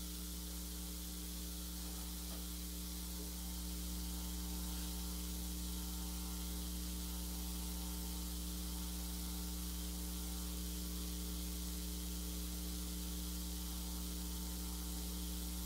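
Steady electrical mains hum with an even hiss: the recording's background noise during a pause, with no other sound.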